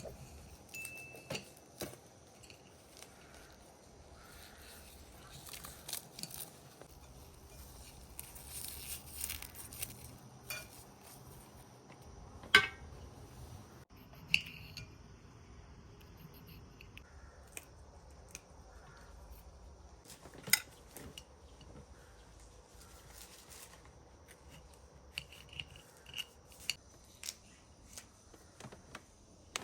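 Cooking utensils and dishes being handled: scattered clinks, taps and knocks. There is a sharp knock about twelve seconds in and a quick run of clinks near the end.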